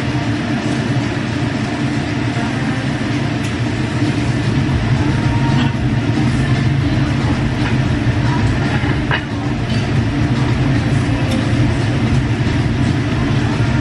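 Steady low rumbling background noise of a Korean barbecue restaurant, with a few faint clicks of chopsticks on the tableware.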